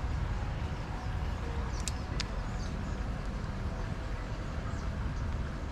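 Outdoor creekside ambience: a steady low rumble of wind or running water, with faint high bird chirps now and then and two sharp clicks about two seconds in.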